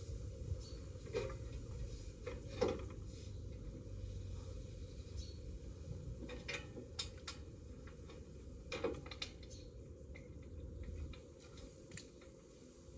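Scattered light clicks and knocks of hands and tools working at the base of a metal streetlight pole, the sharpest about three seconds in, over a low steady rumble.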